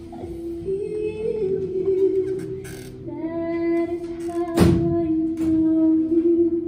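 Slow music of long, held sung notes that shift pitch now and then, with a few clicks and one sharp thump a little past halfway.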